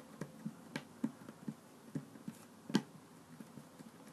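Fingers patting and pressing a lump of play dough flat on a wooden tabletop: a string of soft, irregular taps, with one louder knock about two-thirds of the way through.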